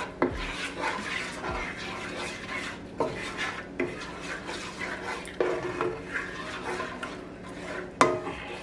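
A red silicone spoon stirring and scraping lemon garlic butter sauce around a skillet, in irregular strokes with light knocks against the pan. The loudest knock comes near the end.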